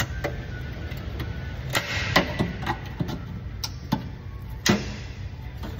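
Steel hook tool prying at a sharp sheet-metal retainer on an exhaust heat shield: irregular metallic clicks and short scrapes, busiest about two seconds in.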